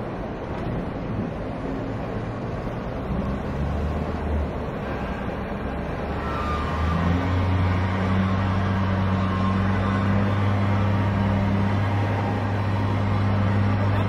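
Diesel engine of a Kalmar log stacker running under load, a steady machine hum that picks up to a louder, slightly higher drone about seven seconds in and holds there.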